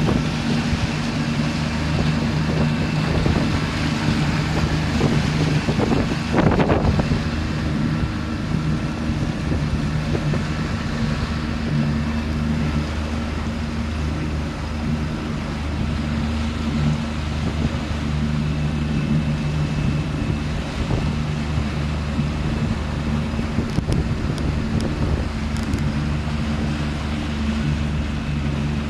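Small motorboat's engine running steadily at an even pitch. Wind buffets the microphone in the first several seconds, with a strong gust about six seconds in.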